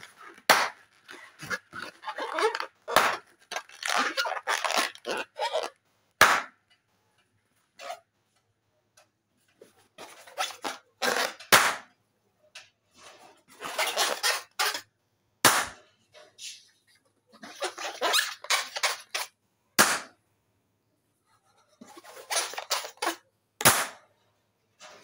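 Latex balloons being squeezed and twisted by hand, the rubber squeaking and rubbing in stretches, broken by several sharp, loud pops as balloons burst every few seconds.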